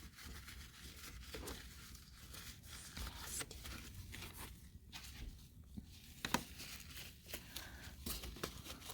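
Plastic packaging crinkling and the coffee maker's plastic parts being handled, with scattered light clicks and knocks; one sharper click comes about six seconds in.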